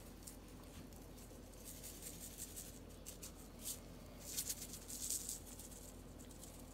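Seasoning rub shaken from a shaker bottle onto a rack of raw spare ribs: faint, dry rattling and sprinkling in short bursts, the strongest a little past halfway.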